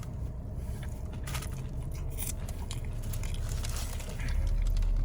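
Faint scattered clicks and scrapes of a meatball sub being handled, over a steady low hum.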